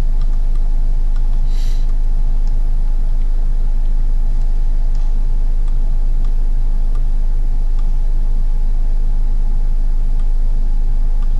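Steady, loud, low electrical hum on the recording line, with a few faint clicks scattered through and a brief hiss about two seconds in.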